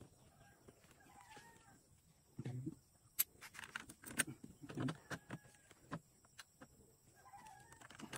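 Sharp metal clicks and a few dull knocks from handling a motorcycle exhaust muffler and a screwdriver at its mounting bracket. Hens cluck faintly about a second in and again near the end.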